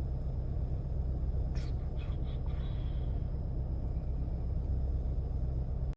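Low steady rumble of a car running, heard from inside the cabin, with a few faint clicks around two seconds in.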